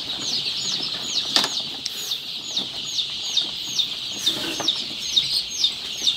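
A crowd of chicks peeping continuously, with one chick's loud falling peeps repeating two or three times a second above the rest. There are two sharp knocks, about a second and a half in and just past four seconds.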